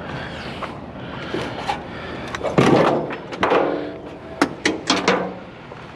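A run of metal clanks and knocks as scrap pieces are handled and dropped, several in quick succession in the second half, one ringing briefly.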